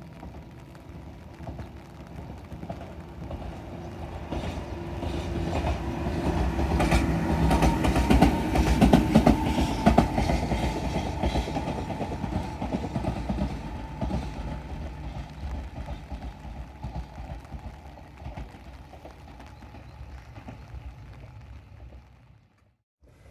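A Tobu 10000-series electric train passes. It builds to its loudest about eight to ten seconds in and then fades, with wheels clicking over the rail joints over a steady hum.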